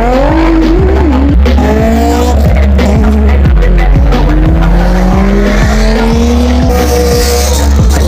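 A phonk track with heavy bass and a steady beat, mixed with cars revving and accelerating away, their engine notes gliding up. Tires squeal about seven seconds in.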